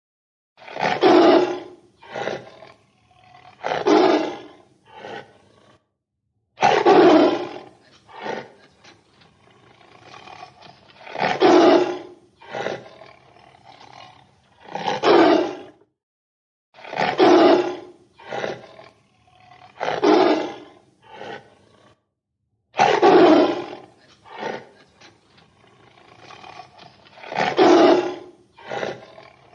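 Tiger roaring over and over: a loud roar every three seconds or so, each followed by one or two shorter, weaker ones. The sound cuts off briefly three times.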